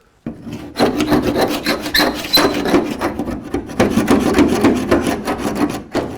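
Rapid, repeated scraping and chipping of thick body filler off a Land Rover Series 3 rear body panel, with a makeshift tool rasping over the filler and metal.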